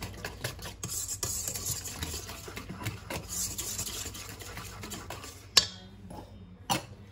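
Wire whisk beating runny chickpea-flour batter in a stainless steel bowl, a continuous wet scraping and clinking against the metal, whisked smooth to get rid of lumps. The whisking stops about five and a half seconds in with a sharp clack, and a fainter clack follows a second later.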